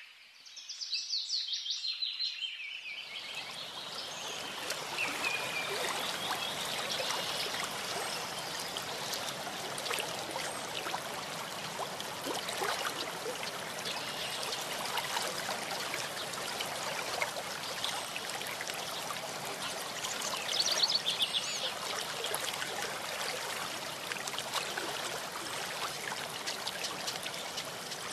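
Songbirds chirping, then about three seconds in a small stream starts to babble and trickle steadily, with birds still calling over the water now and then.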